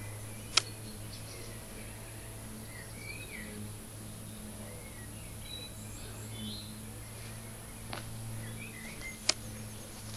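Outdoor ambience: birds chirping now and then over a steady low hum, with two sharp clicks, one about half a second in and one near the end.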